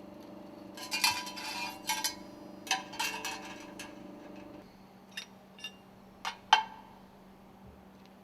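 Metal stuffing-box ring segments clinking as they are taken apart and stacked on a work table: a quick run of clinks and clatter for a few seconds, then a few single clinks.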